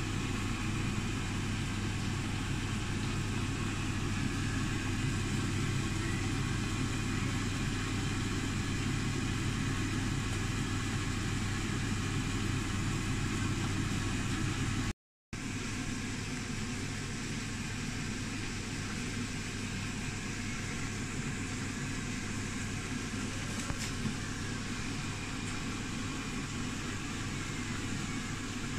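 A steady mechanical hum, like a motor running, strongest in its low tone. It cuts out abruptly for a moment about halfway through, then resumes.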